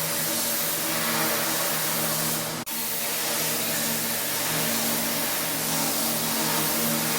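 Pressure washer running steadily: a gas engine's hum under the broad hiss of high-pressure water spray. The sound cuts out for an instant about two and a half seconds in, then carries on.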